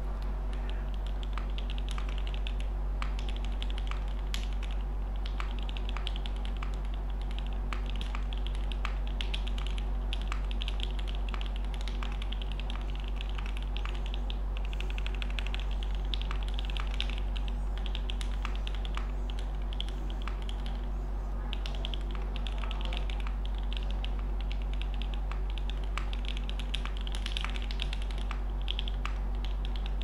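Continuous typing on a Cable Car Designs Prophet 60% custom mechanical keyboard with a half polycarbonate plate, lubed and filmed C3 Banana Split linear switches and GMK Bento R2 ABS keycaps: a steady stream of key clacks over a low hum.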